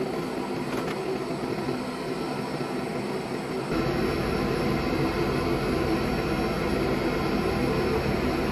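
Steady machine noise from the dry ice blasting equipment, a running hum with several held tones. About four seconds in, a deeper rumble comes in and holds.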